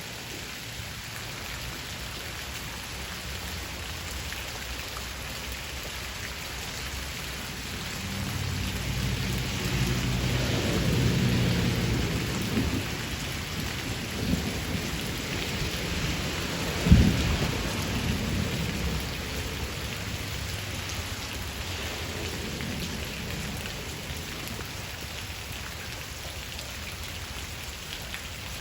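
Steady rain falling in a shower. A low rumble of thunder builds about eight seconds in and dies away by about twenty seconds, with a sharp crack about seventeen seconds in.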